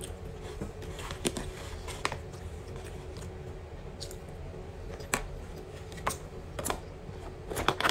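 A metal spoon clicking and scraping against a plastic takeout tray during a meal, in scattered single taps. The clicks come faster and louder near the end as a plastic soup container is handled.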